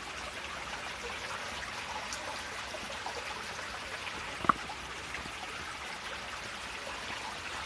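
Creek water running and trickling over rocks, a steady rush, with one short sharp sound about four and a half seconds in.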